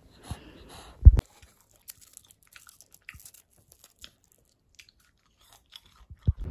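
A loud low thump about a second in, then a run of small, sharp, crisp crackles and clicks: a sheet of dried laver (gim) being crinkled and bitten. A second, shorter thump comes near the end.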